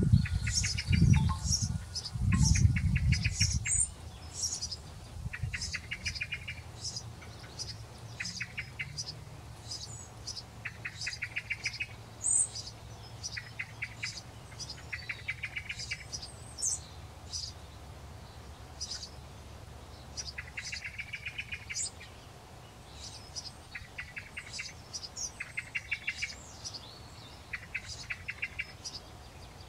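Birds singing: short high chirps over and over, alternating every second or two with brief rapid trills. A low rumble sounds during the first three seconds.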